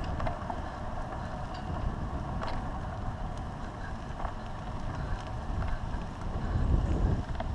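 Wind buffeting the microphone of a handlebar-mounted GoPro on a moving electric bicycle, a steady low rumble that swells near the end, with a few faint clicks as the bike rolls over cracked asphalt.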